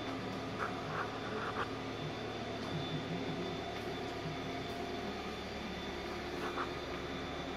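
A steady low mechanical hum with hiss, with a few faint light ticks.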